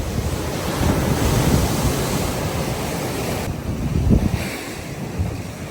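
Sea waves breaking and washing ashore, a steady rush that swells about a second in. Wind gusts buffet the microphone with low rumbles around four seconds in.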